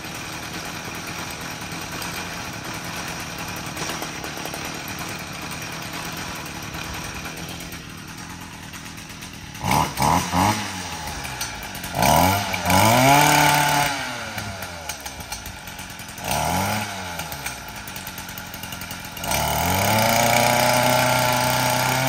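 Gas two-stroke string trimmer engine idling steadily, then revved. About ten seconds in come three quick blips, followed by longer revs that rise and fall in pitch, the last held high for a few seconds near the end.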